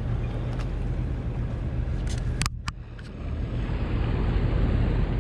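Steady low drone of an engine running on a fishing boat, with wind and sea noise over it. A few sharp clicks come about halfway through, followed by a brief dip in the noise.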